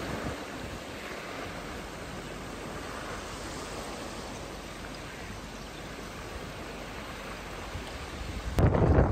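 Choppy lake water washing through broken, floating ice floes, a steady rushing wash. Near the end it switches abruptly to much louder wind buffeting the microphone.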